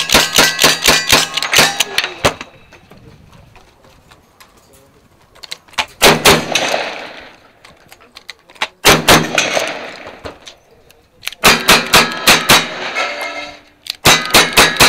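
A rapid string of lever-action rifle shots with the steel targets clanging, ending about two seconds in. A pause follows, then two shotgun blasts about three seconds apart, each followed by ringing. Near the end comes a quick string of single-action revolver shots on steel plates.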